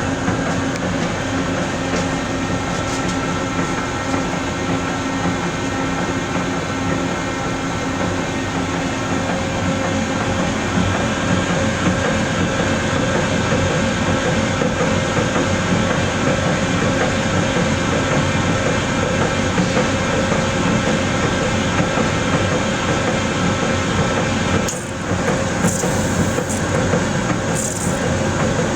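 Nakai Kikai Kogyo mochi-pounding machine running on test: a steady mechanical running noise with a few held tones over it. It briefly drops in level about 25 seconds in, then carries on.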